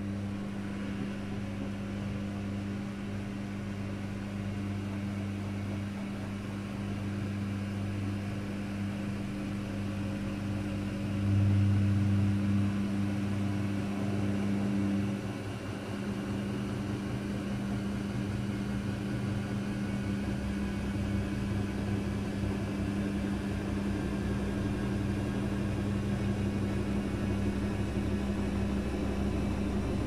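Daewoo DWD-FT1013 front-loading washing machine running in its service test mode: a steady electric hum that gets louder about 11 seconds in. The hum shifts to a lower, rougher one about halfway through.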